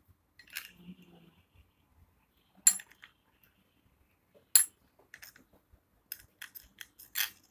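A metal spoon stirring honey and lime juice, clinking against the side of its container: a single clink, another a couple of seconds later, then a quicker series of clinks near the end.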